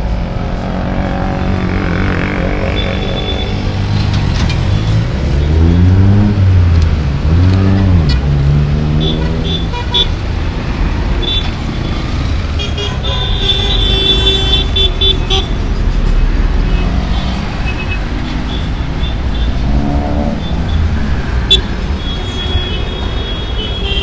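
Busy street traffic: vehicle engines revving as they pass, with short horn toots.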